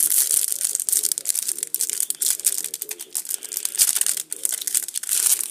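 Clear cellophane wrapper of a card pack being torn open and crumpled by hand, a continuous crackling with many sharp little snaps.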